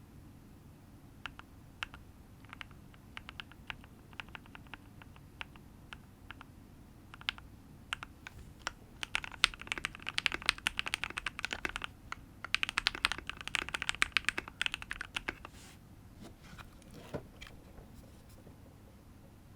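Custom KBD67 V3 mechanical keyboard with lubed, filmed Everglide Aqua King linear switches on an FR4 plate, with Tai Hao Haunted Jelly Jade keycaps, being typed on, its bottom-out pretty nice and poppy. It starts with single, spaced-out keystrokes, runs into two stretches of fast typing in the middle, and ends with a few scattered presses.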